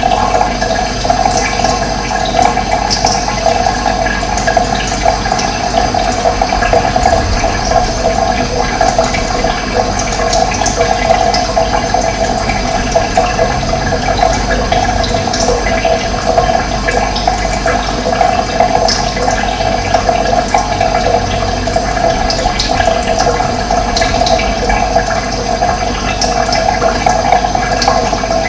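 Running water flowing in a steady, even rush that does not change.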